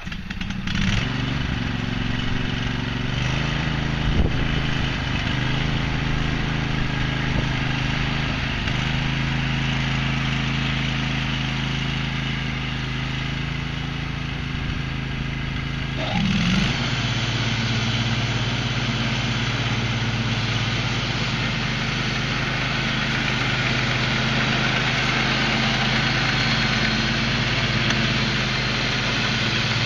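22 HP engine of a Husky riding lawn mower with a 46-inch deck, catching about a second in and then running steadily. About halfway through, its note shifts and the sound turns harsher and a little louder.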